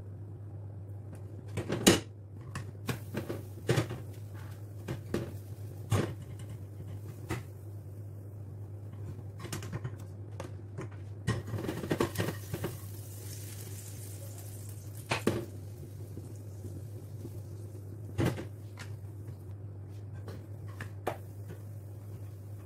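Scattered clicks, knocks and scrapes of a spatula working a non-stick frying pan on a gas hob, over a steady low hum.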